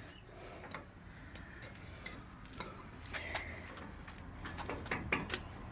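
Scattered light metallic clicks and taps of the old automatic locking hub and tools being worked loose from the wheel hub, a few around the middle and several close together near the end.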